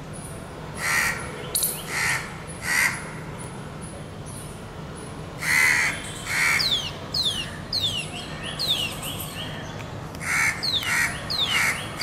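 Indian grey hornbill giving short, harsh calls in bouts: three about a second apart, two near the middle, then a quick run of four near the end. A run of thin falling whistles fills the gap between the bouts, over a steady low hum.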